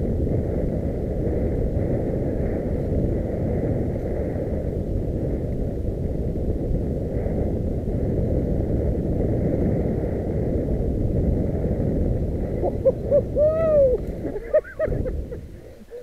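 Wind and trail rumble on a helmet-mounted camera's microphone as a mountain bike is ridden down a forest singletrack. Near the end the rumble fades as the bike slows, and a few short rising-and-falling hoot-like tones are heard.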